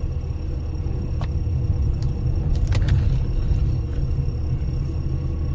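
Car driving with a steady low road and engine rumble, with a few light clicks about one to three seconds in.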